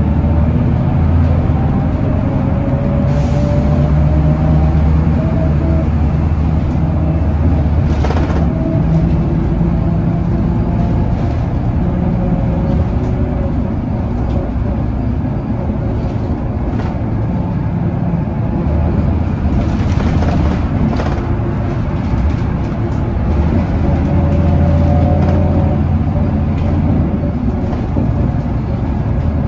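Scania L94UB city bus heard from inside the cabin: its diesel engine drones under load, and the hub-reduction rear axle whines, the whine rising in pitch as the bus gathers speed. The engine is loudest in the first eight seconds and again from about twenty seconds until near the end, with a few short clunks from the body.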